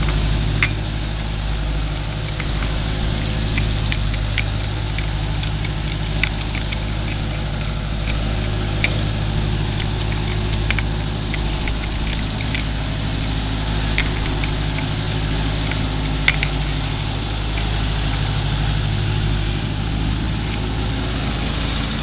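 Case 530 Construction King backhoe's engine running steadily at a low speed, with a scattering of short, sharp clicks over it.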